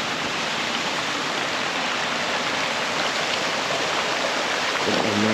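Small waterfall running steadily: a continuous, even rush of falling water.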